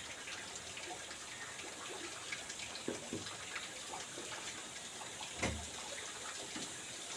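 Steady hiss of running or falling water, with a few dull knocks of things handled at a wooden kitchen cupboard, the loudest about five and a half seconds in.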